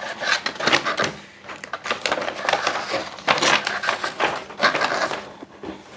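A folded paper instruction sheet for a plastic model kit being unfolded and handled, rustling and crackling in a run of short bursts.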